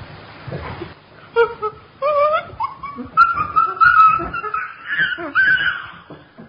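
A chimpanzee calling: after about a second of noise, a run of high-pitched calls, each rising in pitch, repeated several times.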